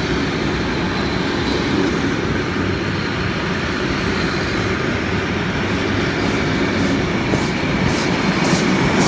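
A heritage train of red wooden carriages rolling past close by, a steady rumble of wheels on the rails. Near the end the steam locomotive comes level, and a run of short, sharp beats starts up.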